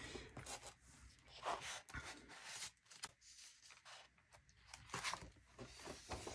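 Faint rustling of paper as the pages of a printed instruction booklet are handled and turned, in a few short, soft brushes and taps.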